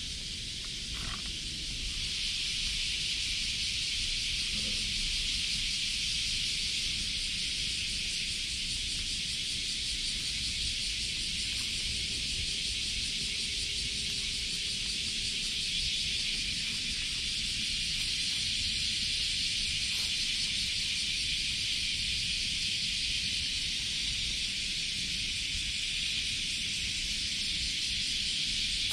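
A steady chorus of insects, grows louder about two seconds in and then holds level.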